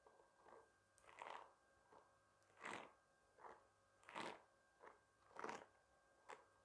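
Faint strokes of a bristle hairbrush swept across the microphone, about eight in all, one roughly every second.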